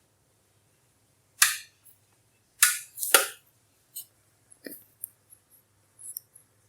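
Sharp pops from a brand-new Midea JK30E201 electric double heating pan, which the owner takes for a fault: three loud pops in the first half, then several fainter pops and clicks.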